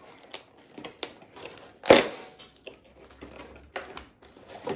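Toy packaging being pried and pulled open by hand: scattered clicks and rustles, with one loud sharp crack about two seconds in.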